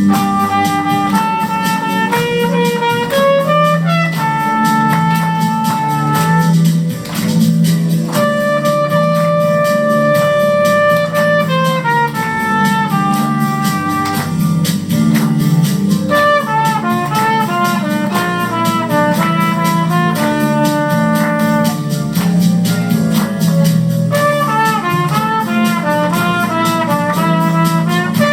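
Instrumental passage of a Christmas song: one lead melody of long held notes, with quicker runs in the middle and near the end, over steady low chords.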